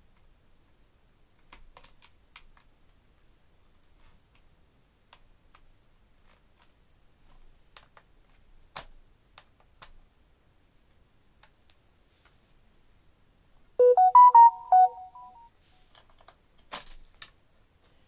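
A short electronic tune of a few clear beeping notes about 14 seconds in, the loudest sound here. Around it, faint scattered clicks and taps of the vacuum cleaner's plastic parts being handled.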